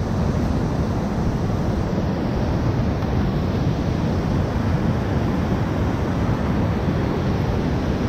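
Steady rushing roar of whitewater rapids around a raft, heaviest in the low range and unbroken throughout.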